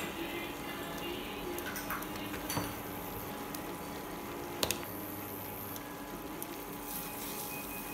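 Masala gravy sizzling gently in a nonstick pan, with two sharp clicks about two and a half and four and a half seconds in. A spatula starts stirring through it near the end.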